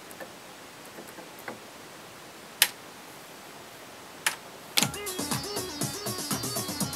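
Clicks of synthesizer keys and buttons being pressed, then about five seconds in an acid-house sequence starts: a Roland SH-101 bassline of fast repeated notes with pitch slides, over drum-machine hits.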